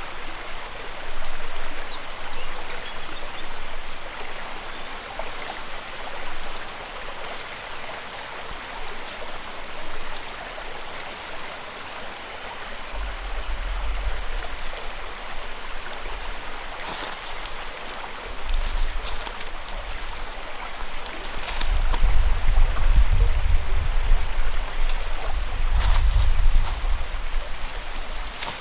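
River water flowing steadily, with a steady high whine above it. Low rumbles come and go through the second half, alongside a few sharp clicks.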